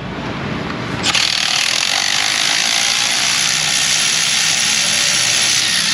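Power ratchet running for about five seconds, loosening a front spark plug. It makes a steady hissing whir that starts sharply about a second in.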